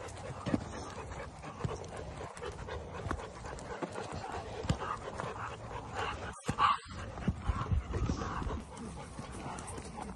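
Several leashed dogs panting as they walk, with scattered footfalls and rustling through grass and leaf litter. A brief louder noise comes about six and a half seconds in.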